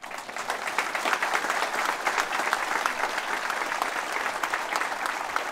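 Crowd applauding: many people clapping at once, breaking out suddenly and keeping up steadily.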